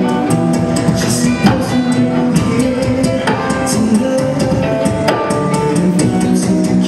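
Acoustic guitar playing over a beatboxed drum beat: a steady rhythm of sharp percussive mouth hits kept throughout.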